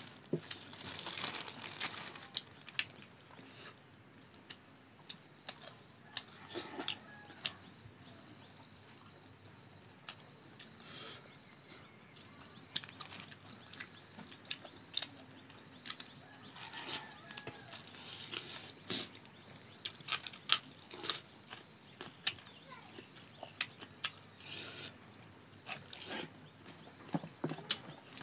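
Scattered crinkling of a plastic bag, clicks and handling noises as food is unwrapped and eaten by hand, over a steady faint high-pitched whine.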